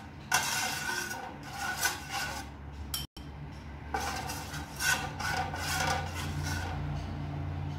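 Metal spoon rubbing and scraping across a hot metal pizza pan in repeated strokes, spreading oil over the pan.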